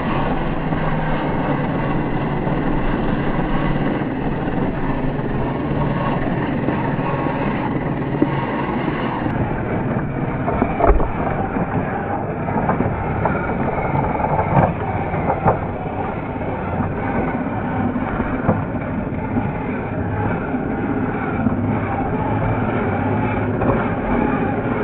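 Small 1:12-scale RC crawler's electric motor and gear drive running steadily as it drives over dirt and rocks, with a few sharp knocks in the middle of the run.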